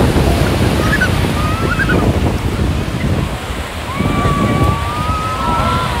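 North Sea surf washing on the beach, with wind buffeting the microphone. Faint high gliding calls sound over it, the longest held from about four seconds in to near the end.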